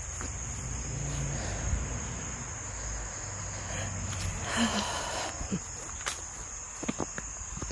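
Steady, high-pitched chorus of insects trilling without a break. A few scattered footsteps and rustles on grass and leaves in the second half.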